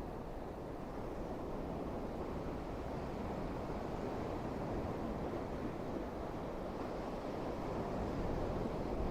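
Waves of the Irish Sea washing onto the shore, a steady rushing noise, with wind rumbling on the microphone.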